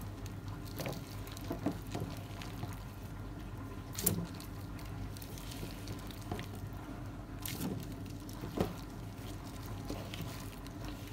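Marinated diced raw chicken being spread by gloved hand onto an air fryer basket rack: a few brief, soft wet handling sounds and taps, scattered through, over a steady low hum.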